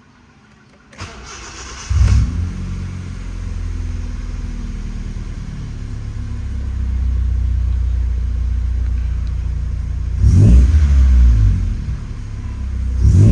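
1999 Honda Civic engine being started: a brief crank about a second in, then it catches about two seconds in and settles into a steady idle. About ten seconds in and again near the end the engine speed rises and falls. The start tests the freshly cleaned idle air control valve, whose carbon build-up had made the idle drop with the aircon on.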